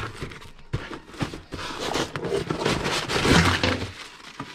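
Cardboard box flaps being pulled open and crumpled brown packing paper rustling and crinkling as parts are unwrapped, with a few knocks along the way.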